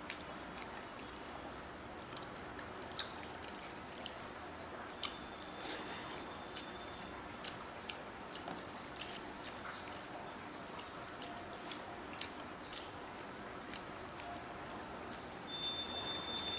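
Rice eaten by hand: fingers mixing rice and curry on a metal plate, giving small scattered clicks and soft squishy scrapes over a steady background hiss. A thin high steady tone sounds briefly twice, about five seconds in and again near the end.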